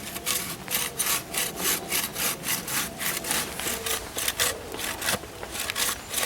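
Hand saw cutting through wood in quick, even back-and-forth strokes, about four a second.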